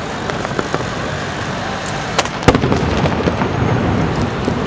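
Aerial fireworks shells bursting: two bangs a little over two seconds in, the second the loudest, then a few lighter cracks, over a steady background rumble.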